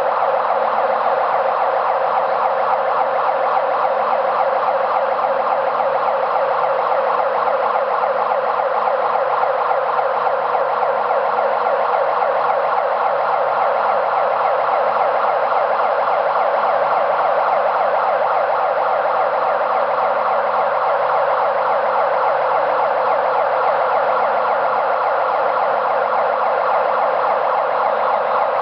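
Overhead crane's warning siren sounding continuously while the crane hoists a test load, a steady, slightly wavering tone that doesn't stop or change.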